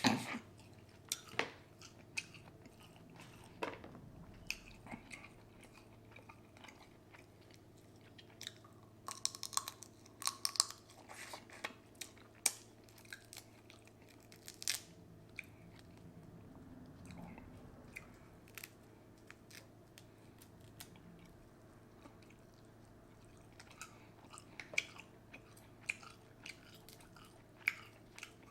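A person eating seafood boil ramen: chewing and biting, with scattered short, sharp crunches and clicks that come thickest about ten seconds in and again near the end.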